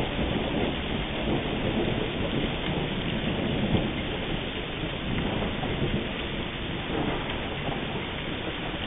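Steady rain from a thunderstorm, with low rolling thunder swelling and fading through it.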